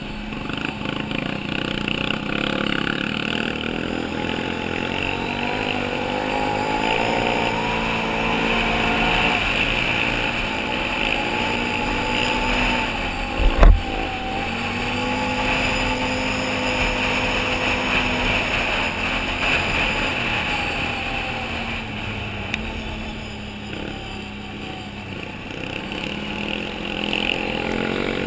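Can-Am Outlander 800 ATV's engine running under load, its pitch rising and falling as the throttle opens and closes. About halfway through there is a single sharp knock, the loudest sound.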